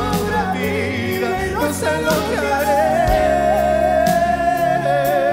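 Two male singers singing a romantic ballad duet over instrumental accompaniment; about three seconds in, a voice settles into a long held note with vibrato.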